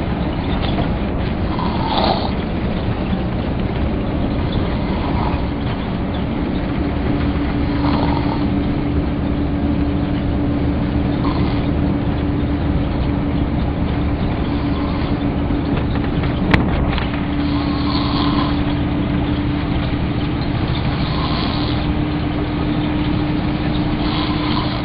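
A man snoring, one snore about every three seconds, over the steady running noise of a bus with a constant hum. A single sharp click about two-thirds of the way through.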